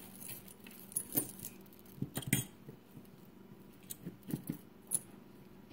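Metal chain necklaces clinking as they are lifted and handled by hand: a few scattered, irregular clinks and jingles.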